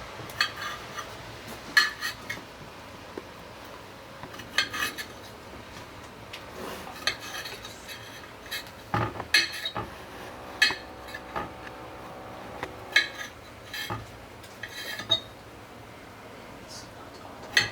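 Kitchen knife cutting baby plum tomatoes on a chopping board: irregular sharp knocks, roughly one every second, some in quick pairs.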